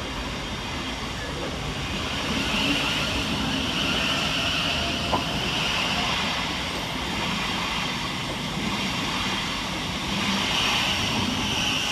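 Southeastern Class 707 Desiro City electric multiple unit pulling away from the platform: wheels on rails and traction noise, with a high hiss that swells about two seconds in and again near the end. A single sharp click about five seconds in.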